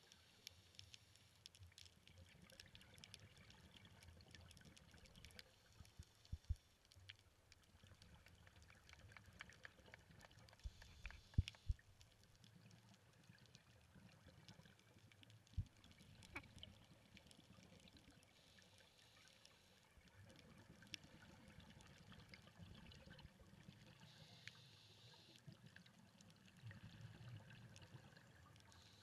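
Faint, muffled underwater sound picked up through a diving camera's waterproof housing, with a few sharp knocks: two about six seconds in, a quick cluster of three around eleven seconds, and one more near sixteen seconds.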